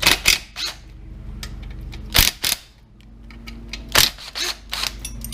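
Irregular sharp metallic clicks and clinks of hand tools and engine parts being handled during the engine teardown, with a steady low hum underneath.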